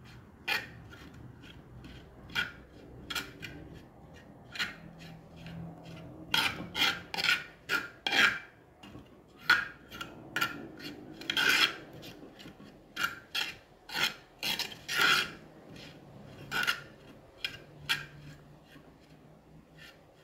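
Metal spoon scraping and rasping against the inside of a clay pot in many short, irregular strokes, as a spice paste is stirred into vinegar and salt water to dissolve it.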